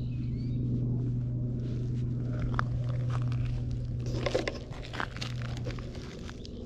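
Cat purring close up, a steady low buzz that fades out about five seconds in. Scattered clicks and crunches on gravel in the middle stretch.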